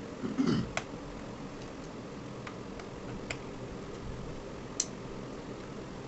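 A brief low bump right at the start, then a few scattered sharp clicks and taps of a screwdriver and small screws on the plastic underside of a Dell laptop being unscrewed.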